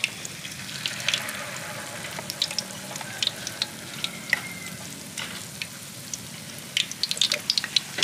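Batter-coated cá linh fish frying in hot oil in a pan: a steady sizzle with many scattered crackles and pops.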